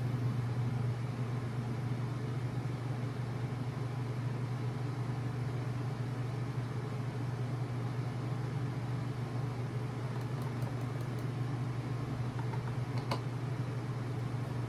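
Steady hum of an evaporative (swamp) cooler running, with a single sharp click about thirteen seconds in.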